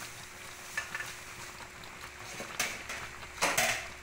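Broth with land crabs simmering and bubbling in an aluminium wok, with light metal clinks and a louder clatter against the pan a little before the end.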